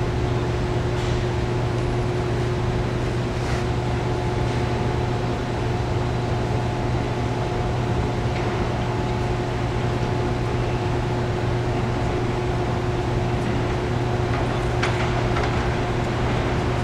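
Steady low mechanical hum in an underground light-rail station as a train approaches through the tunnel, with a thin steady tone joining about four seconds in and a few faint clicks.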